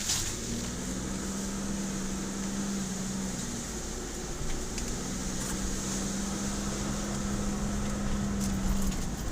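Car cabin while driving slowly: a steady engine and fan hum, with a low drone that holds for a few seconds, twice.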